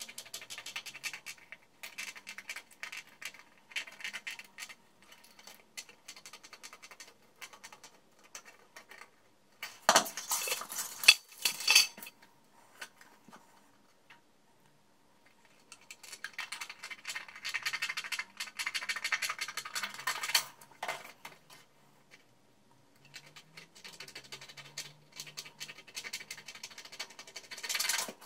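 Aviation tin snips cutting thin paper-covered sheet metal: runs of quick crisp snipping clicks with short pauses between cuts. A louder clatter of the metal comes about ten to twelve seconds in.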